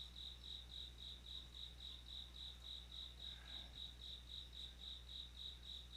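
Faint insect chirping: a high tone pulsing evenly, about four chirps a second, over a low steady hum.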